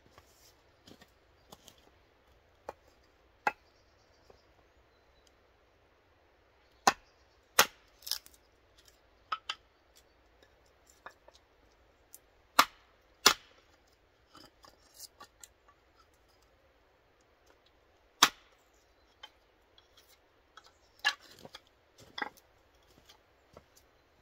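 Hatchet splitting wood on a chopping block: about ten sharp, irregularly spaced chops, the loudest about seven, thirteen and eighteen seconds in, with lighter knocks of split pieces being handled between them.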